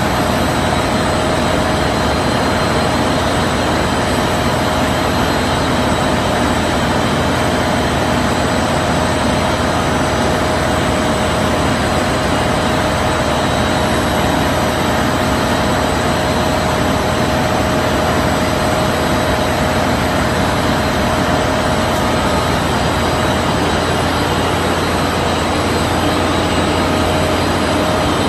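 Open-width washing range for cotton knit fabric running: a loud, steady machine noise with a constant whine.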